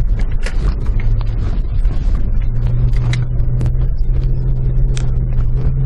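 Vehicle engine running steadily, heard from inside the cabin as it drives over rough ground. Frequent knocks and rattles sound over the drone, which settles into a steady note about halfway through.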